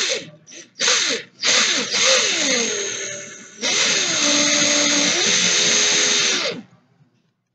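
Cordless drill run in a few short trigger pulses, then two longer runs of a few seconds each, its motor pitch rising and falling; it is spinning to twist a vape coil's paired wire leads together. It stops about a second before the end.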